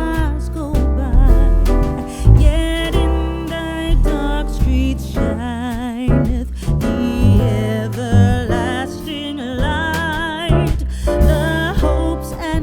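Background music: a singing voice with wavering, vibrato-laden held notes over an instrumental accompaniment with a repeating bass line.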